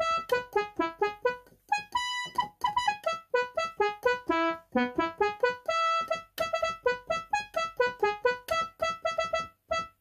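Yamaha PSR-60 home keyboard playing a quick melody on its trumpet voice, dry with no reverb: short, clipped notes that stop dead, with a few held a little longer.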